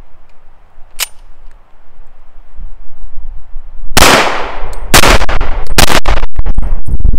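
Llama Max-1 .38 Super pistol: a sharp metallic click about a second in, then shots from about four seconds in, two about a second apart followed by more.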